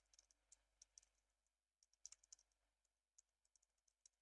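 Faint typing on a computer keyboard: quick, irregular key clicks in short runs, with a brief pause about a second and a half in.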